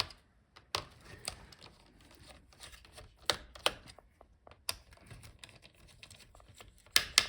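Irregular light clicks and taps from small tools and parts being handled on a laptop's internals during heatsink removal, with a sharper pair of clicks near the end.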